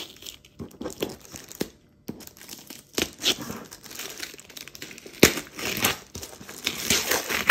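Paper tape being peeled and torn off a parcel wrapped in thin plastic, the plastic crinkling under the hands. The rustles and sharp rips come irregularly, with a short pause about two seconds in.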